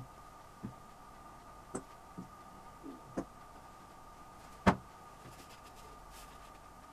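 Scattered sharp knocks of MDF board pieces being handled and set down on the box, with the loudest knock about two-thirds of the way in.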